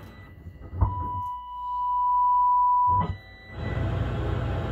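A steady pure test tone held for about two seconds through a Marantz 2245 stereo receiver under test, with a click just before it starts and another as it stops. Music cuts out at the start and comes back near the end.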